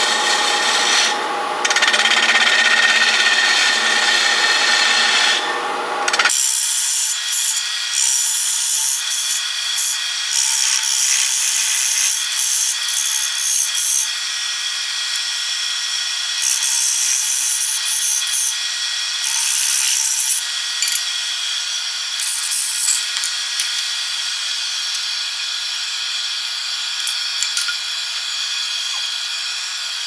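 Hollowing tool cutting and scraping inside a cedar blank spinning on a wood lathe, a continuous rough rasping that swells and eases as the cut moves. About six seconds in, the deeper part of the sound drops away abruptly and only the higher scraping carries on.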